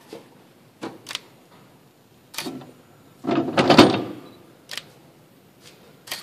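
Metal knocks and clunks as a Ford 9-inch third member is fitted onto its studs and pushed into an independent-rear-suspension center section. Single knocks come before and after a longer run of clattering about three to four seconds in, which is the loudest.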